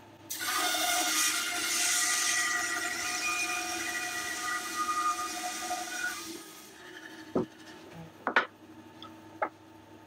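Grizzly G0555XH 14-inch bandsaw with a Wood Slicer resaw blade cutting through a thick block of cherry. The cut starts abruptly as a loud hiss with a steady whine and eases off after about six seconds. Three sharp knocks follow about a second apart.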